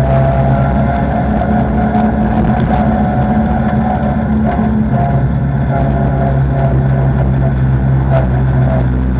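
Open-cockpit vintage race car's engine running at low, steady revs while the car rolls slowly, close and loud on the in-car microphone; the note eases briefly around four seconds in.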